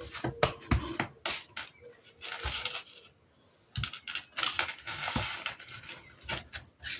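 A clear acrylic stamping block with a rubber stamp clicking and tapping as it is set down and pressed by hand onto paper cards, with paper rustling and sliding in between.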